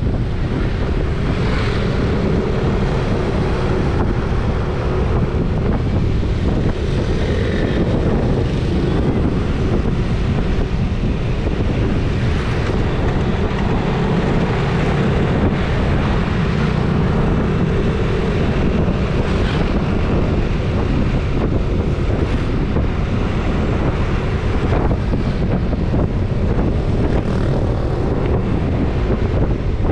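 Wind rushing over an action camera's microphone on a moving vehicle, with steady engine and road noise underneath.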